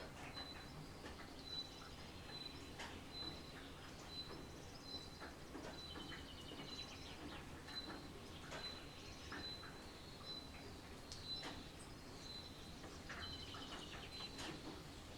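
Rain falling and dripping as scattered sharp taps, under a steady low hiss. Through it a small songbird repeats one short high note about twice a second.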